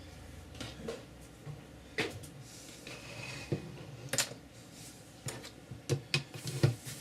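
Irregular light knocks and clicks of board pieces and tools being handled and set down on a work table during box making, about seven separate taps with the loudest near the end.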